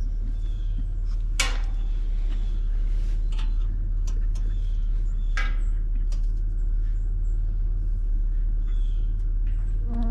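Steady low rumble of a running vehicle engine, with two sharp knocks about a second and a half and five and a half seconds in.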